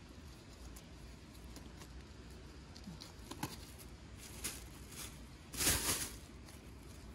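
Soft handling sounds of black nitrile-gloved hands trimming oyster mushrooms with a small knife: a few light clicks, then a brief louder rustle, about half a second long, near the end.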